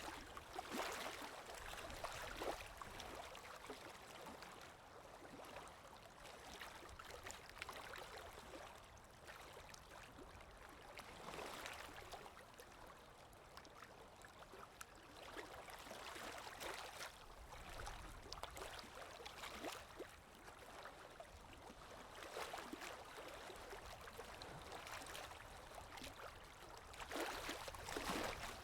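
Lake waves breaking, a rushing wash that swells and fades every few seconds, with louder breaks near the start and near the end.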